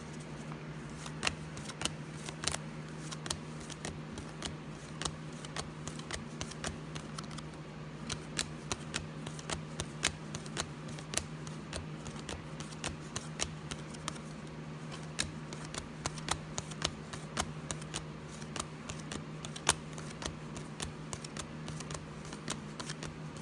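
A stack of football trading cards being flipped through by hand, each card slid off the stack with a sharp little snap, irregular at about two or three a second, over a steady low hum.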